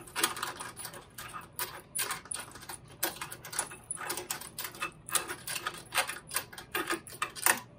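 Key turning in the cylinder of a Simplex L1000 lever lock to unscrew a piece from the lock, with irregular metallic clicks and the other keys on the ring jangling against the lever trim.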